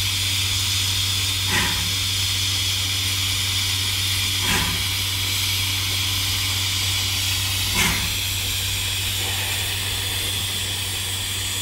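Steam locomotive hissing steam steadily, with three short louder pulses spaced about three seconds apart.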